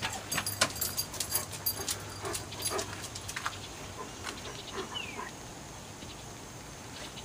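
German shepherd making a few short, soft whining sounds, with a run of sharp clicks and taps in the first three seconds and a brief falling high squeak about five seconds in.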